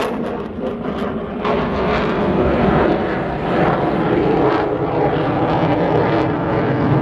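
An aircraft's engine running loud and steady as it flies.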